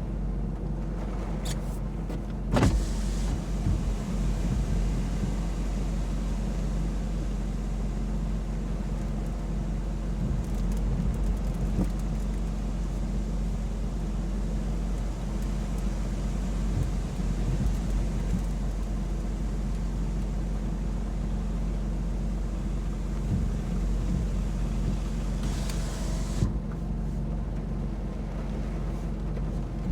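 Steady low rumble of a car driving, with a high hiss that sets in suddenly about three seconds in and cuts off suddenly near the end.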